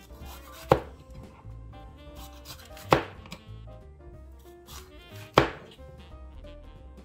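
Chef's knife chopping through a green bell pepper onto a cutting board: three sharp knocks a little over two seconds apart.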